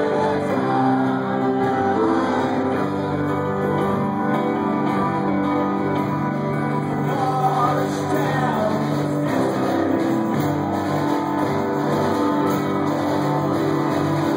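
Indie-folk band playing live: acoustic guitar and keyboard under held chords, with several voices singing together from about halfway through.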